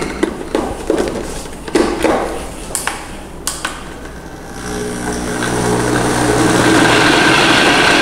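Personal bullet-style blender: clicks and knocks as the inverted cup is pressed and locked onto the motor base. About halfway through, the motor starts and runs up, growing louder for a few seconds and then running steadily as it blends cream with mozzarella cubes.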